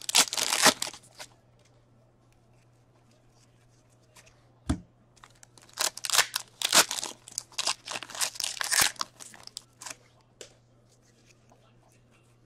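Foil wrapper of a hockey-card pack torn open and crinkled by hand, in bursts. There is tearing at the start, a single knock about five seconds in, then several seconds of crinkling and rustling as the cards are handled.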